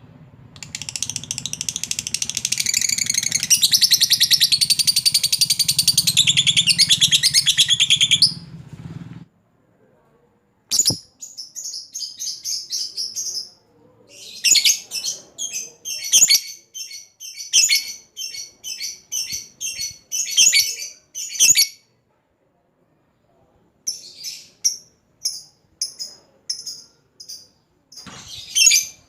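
Lovebird giving its long 'ngekek' chatter: a dense, high, continuous trill lasting about eight seconds over a low hum. It is followed by bursts of rapid short chirps separated by brief pauses.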